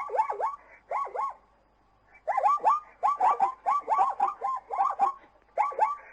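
Zebra calling: quick runs of short, yelping barks, several a second, each dipping and then rising in pitch. There is a brief pause about one and a half seconds in, then the barking resumes.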